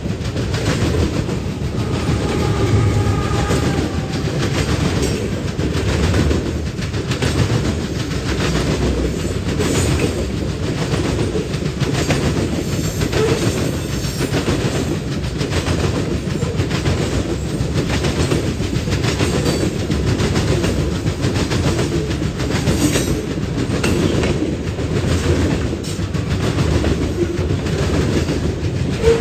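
Freight train of covered hopper cars and boxcars rolling past close by: a steady low rumble with the regular clickety-clack of steel wheels on the rails.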